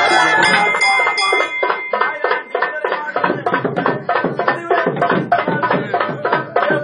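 Traditional temple festival drumming: quick, steady drum strokes, several a second. A higher pitched melody or voices ride over them for the first second and a half, then the drums go on alone.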